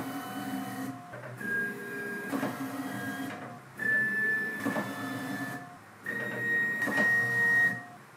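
Anycubic Vyper 3D printer's stepper motors driving the bed back and forth along the Y axis at high travel speed, a steady whine with a knock at each change of direction. It comes in runs of about two seconds, each a little higher in pitch than the last as the travel speed steps up.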